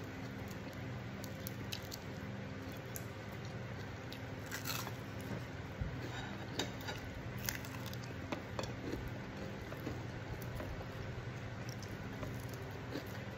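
Close-up eating sounds of a person eating fried fish and rice by hand: chewing and small squishes, with sharper crunches and clicks around the middle, over a steady low hum.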